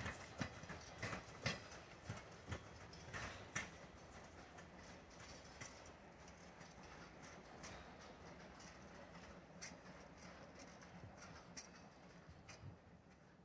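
Horse's hooves clip-clopping at about two strikes a second, loudest at first and fading away as the horse moves off.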